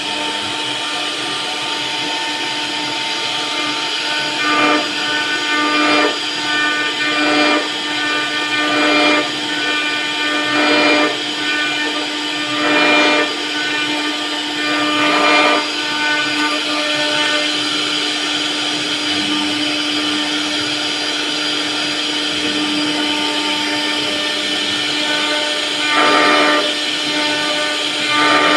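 CNC router spindle whining steadily while its bit carves wood, with louder cutting swells every second or two through the first half and once more near the end.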